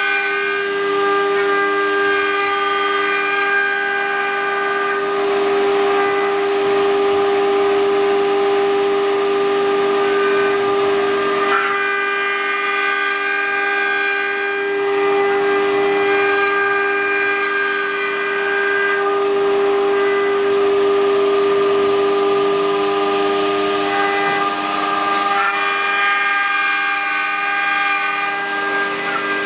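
Multi-spindle 4-axis CNC wood router carving wooden furniture legs: the spindles run with a steady multi-tone whine over the rough hiss of the bits cutting wood, shifting slightly about twelve seconds in and again near the end.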